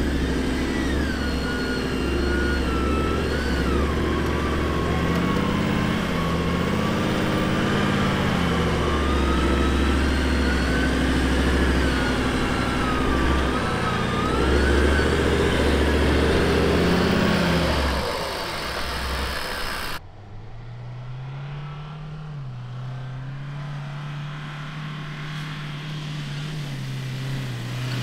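A four-wheel-drive engine is running and revving as the vehicle eases down a sandy dune track on a rope line, with a wavering whine over it. About twenty seconds in it cuts to a quieter, steadier engine note from a Toyota Hilux climbing a dune.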